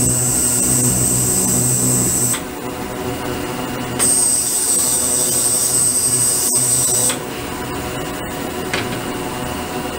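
Ultrasonic cleaning tank with submerged stainless-steel transducers running, giving a steady high whine over a low hum. The whine cuts off after about two seconds, comes back about a second and a half later, and cuts off again about three seconds after that, as the ultrasonic output is switched on and off. A quieter steady noise remains while it is off.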